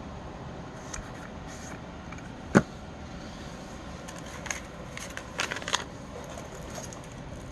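Handling of plastic tap lights and their adhesive pads: one sharp click about two and a half seconds in, then a cluster of lighter clicks and rustling around five seconds in.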